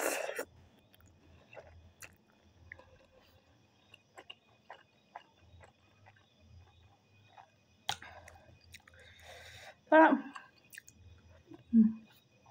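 A person eating ramen noodles and pork: the end of a noodle slurp at the start, then soft chewing with small scattered mouth clicks, and two brief louder mouth or voice sounds near the end.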